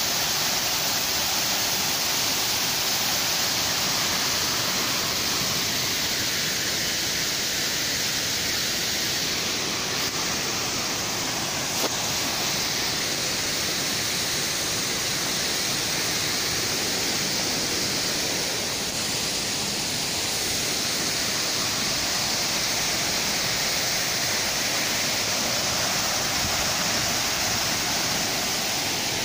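Artificial rock waterfall pouring into a garden pond: a steady, even rush of falling and splashing water.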